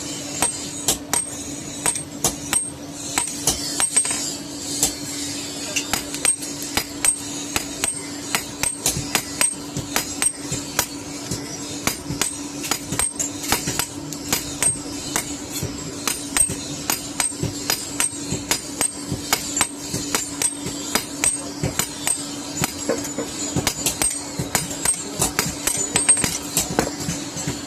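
A hand hammer striking hot iron on an anvil, a continuous run of blows at about two to three a second.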